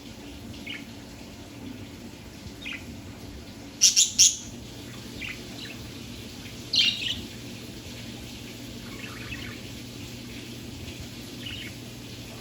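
Budgerigar chirping: short, high single chirps every second or two, with a loud burst of three quick chirps about four seconds in and another loud pair a few seconds later. A low, steady hum runs beneath.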